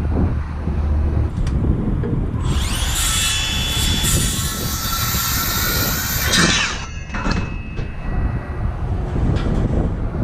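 A power tool runs hard for about four seconds, starting about two seconds in and stopping abruptly with a fading whine. A few short knocks follow. Wind buffets the microphone throughout.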